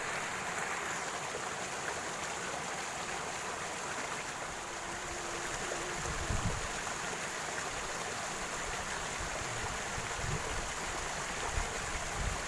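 Steady rushing of a flowing stream, with a few low bumps about six seconds in and near the end.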